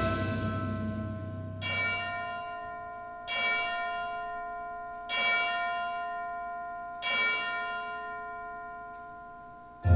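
A deep bell tolls four times, about every two seconds, within the song's accompaniment. Each stroke rings out and slowly fades, while a held music chord dies away at the start.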